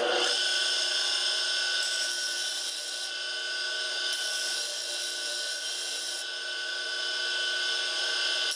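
DeWalt radial arm saw motor running steadily with a whine, driving a disc sander attachment on its arbor, with the hiss of the end of a wooden door stop being sanded against the abrasive disc.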